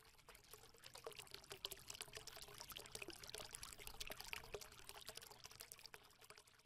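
Faint, dense crackling trickle like liquid being poured, made of many tiny irregular clicks, which thins out and stops shortly before the end.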